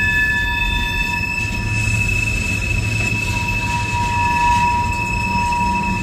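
Freight train tank cars rolling past, their steel wheels squealing in several steady high tones over a continuous low rumble; the lowest squeal tone grows louder near the end.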